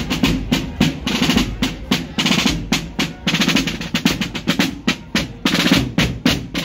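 Rapid drumming: snare-drum rolls and drum hits in a fast, steady rhythm.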